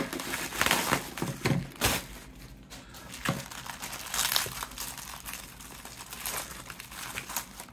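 Plastic packaging crinkling as hands unwrap a phone from air-cushion pillows and a clear plastic bag. The irregular crinkles are loudest in the first two seconds, then softer.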